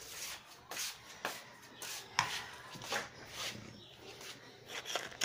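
Empty metal dog-feeding pot being handled and set down: a few scattered light knocks and scrapes.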